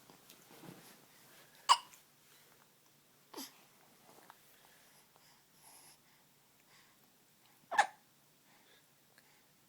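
Three short, sharp hiccups: one a little under two seconds in, a fainter one about a second and a half later, and a loud one near the end.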